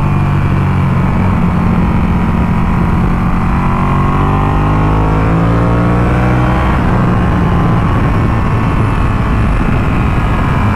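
Ducati Panigale 1299S V-twin engine pulling the bike along a winding road. The engine note dips and then climbs again a few seconds in as the throttle is eased and reopened through a bend.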